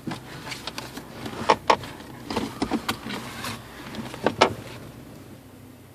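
Irregular soft clicks and rustles from movement and handling inside a car, dying away about four and a half seconds in, leaving a low steady cabin hum.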